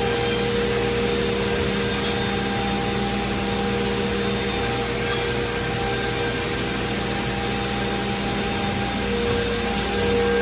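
ShopSabre IS408 CNC router running, a steady spindle whine with several held tones over a constant rushing, vacuum-like noise.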